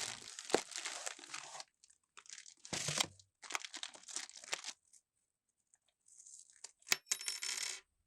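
Handling noises from a phone screen separator tool: short scrapes and rustles broken by sharp clicks of small hard parts, with the loudest clicks near three seconds and near seven seconds in.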